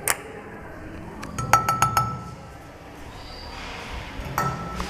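Lift controls: a few light clicks and two short electronic beeps, one about a second and a half in and one near the end.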